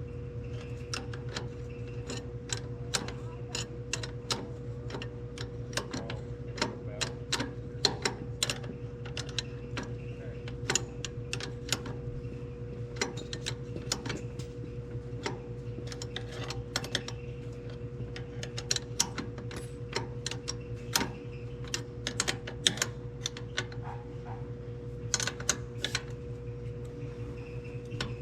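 Irregular metallic clicks and clinks of hand tools working on baler parts, over a steady engine hum.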